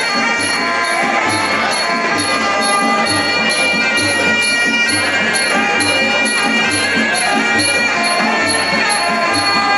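Sarama, the traditional Muay Thai fight music: a pi java oboe playing a wailing melody over glong khaek drums and a ching cymbal keeping a steady beat of about two strokes a second.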